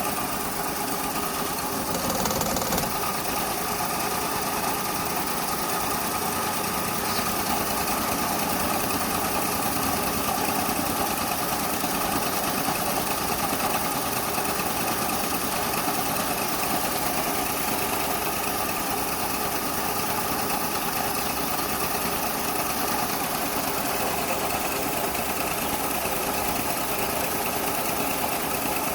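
Maruti 800's three-cylinder petrol engine idling steadily with a misfire in one or more cylinders.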